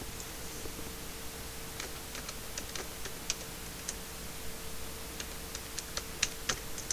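Computer keyboard keys being typed in quick, irregular clicks, starting about two seconds in, as a username and then a password are entered. A faint steady hum runs underneath.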